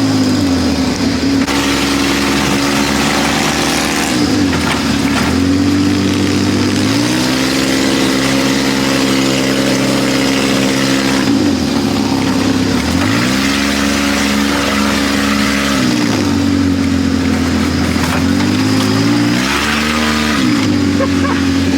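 ATV engine running under way, its pitch sinking and climbing back about five times as the throttle is eased off and opened again, over a steady rushing noise.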